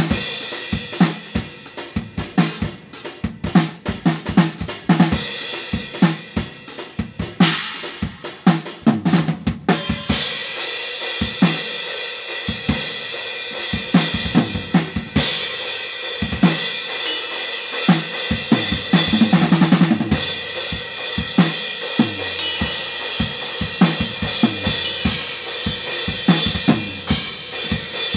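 Drum kit played through a rock song part: fast kick and snare hits with hi-hat and cymbals. From about ten seconds in, a continuous cymbal wash sits over the beat.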